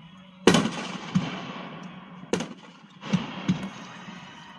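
Fireworks going off: several sharp bangs, the loudest about half a second in and again near the middle, each followed by a fading crackle.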